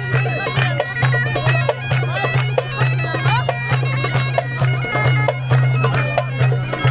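Bagpipe playing a lively folk dance tune over a steady low drone, with the regular beat of a hand-held frame drum.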